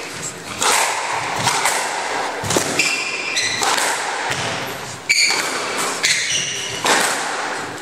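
Squash rally: the ball cracking off rackets and walls every second or two, with short high squeaks of court shoes on the wooden floor.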